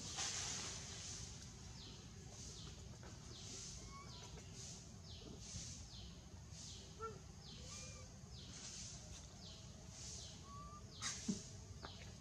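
Faint outdoor background of birds chirping, short high calls repeating about once a second, with a brief louder call about eleven seconds in.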